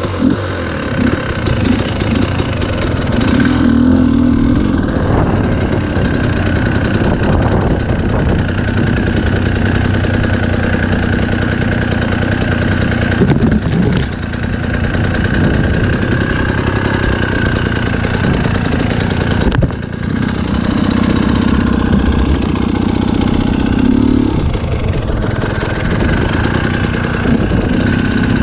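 Dirt bike engine running steadily as the bike is ridden along a trail. The sound drops briefly about twenty seconds in.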